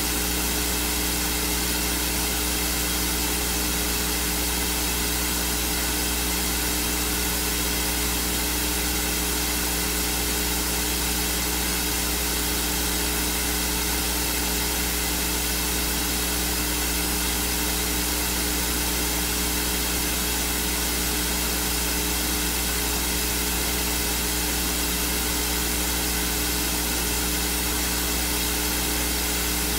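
Steady, even hiss with a constant low hum and a few steady tones beneath it, unchanging throughout; no speech comes through.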